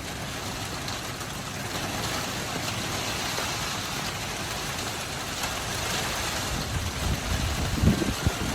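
Heavy rain falling steadily in a thunderstorm, an even hiss, with low rumbling buffets near the end.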